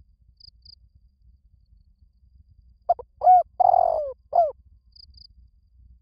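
Spotted dove cooing one phrase of four low notes about three seconds in: two short notes, a longer falling one, then a short one.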